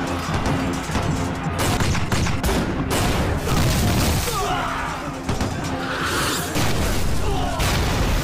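Several cannon-shell explosions going off one after another with a heavy low rumble, over dramatic background music.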